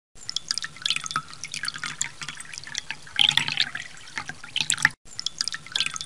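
Raindrops falling into water, an irregular patter of small drips and splashes that thickens about three seconds in, with a brief cut to silence just before five seconds.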